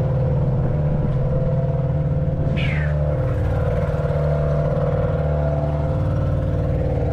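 30 hp Yamaha two-stroke outboard motor running steadily on a small boat. A brief high falling chirp cuts in about two and a half seconds in.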